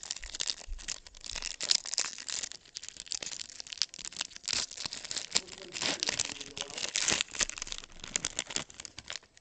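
Foil wrapper of a baseball card pack being torn open and crinkled by hand. It makes a dense run of crackles that stops just before the end.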